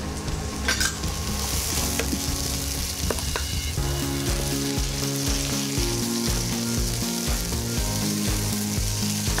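Shallots, tomatoes and mint leaves frying and sizzling in a nonstick kadai while a wooden spatula stirs them. Background music with a steady beat plays underneath, more strongly from about four seconds in.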